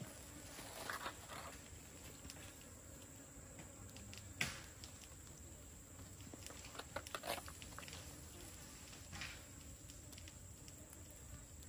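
Faint, scattered clicks and small knocks of people eating a meal, with one sharper click about four seconds in.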